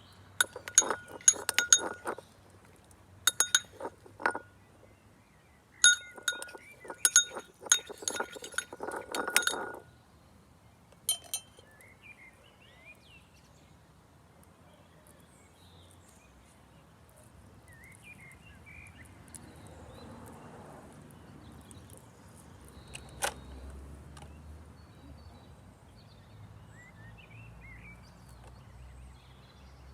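A utensil clinking against a glass bowl or cup while slime is being mixed. The clinks come in quick clusters with a short ring over the first ten seconds. After that there is one more single clink in a low, quiet background.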